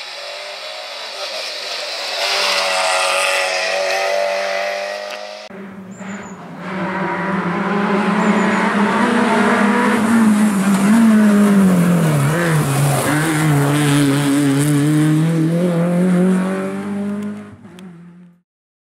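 Rally car engines at full throttle, two cars one after the other. First a hatchback rally car with its engine note climbing as it accelerates, cut off sharply about five seconds in. Then a Renault Clio rally car with its engine note falling around the middle and climbing again as it accelerates, until the sound stops abruptly near the end.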